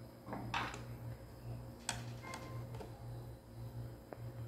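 Screwdriver working the screws of a massager's motor mount: a few scattered light clicks and ticks of metal on the screw heads as the screws are loosened. A steady low hum runs underneath.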